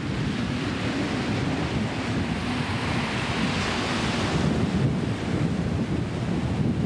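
Small waves washing onto the shore: a hissing wash that swells and dies away about four seconds in, over a steady low rumble of wind buffeting the microphone.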